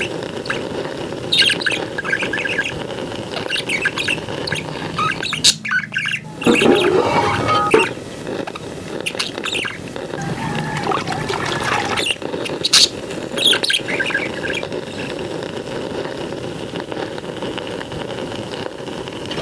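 Outdoor wood-fire cooking sounds: a steady crackle and hiss from the burning fire, with sharp clinks of steel pots, lids and a ladle. Birds chirp now and then, and the sound drops out briefly about six seconds in.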